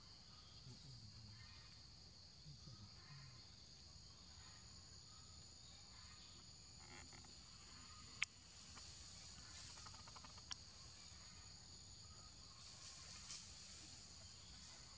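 Faint steady high-pitched drone of forest insects. Two sharp clicks cut through it, one about eight seconds in and another two seconds later.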